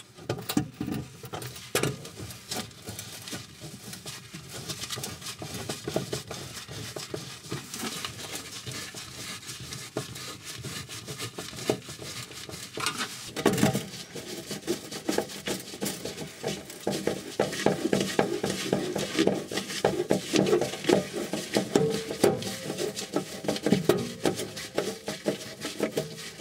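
Hand screwdriver driving self-tapping screws into the oven's sheet-metal back panel, a long run of metallic scraping and clicking as the screws turn and bite, with a louder clatter about halfway through.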